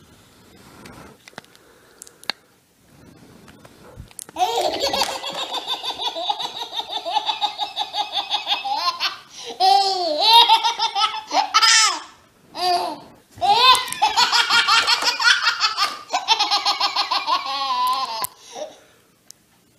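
A baby laughing hysterically: long runs of rapid, pulsing belly laughs that start about four seconds in, broken by a few short pauses for breath.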